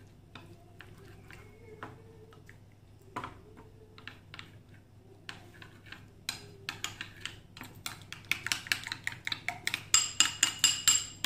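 A metal spoon stirring maida and water into a thick paste in a ceramic bowl, clinking and scraping against the bowl. The clinks are sparse at first, then come rapidly, several a second, and loudest in the last few seconds.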